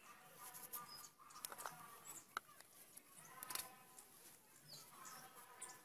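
Faint scraping and clicking of a large kitchen knife peeling the skin off a raw potato by hand, with a few sharper knife ticks.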